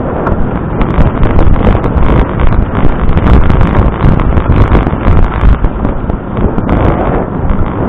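Wind buffeting the microphone in loud, uneven gusts.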